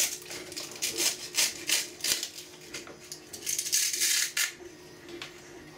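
Utility knife blade scraping and cutting through the thin lattice infill of a broken 3D-printed ABS part: a run of short, irregular, crackly scraping strokes that die down about four and a half seconds in.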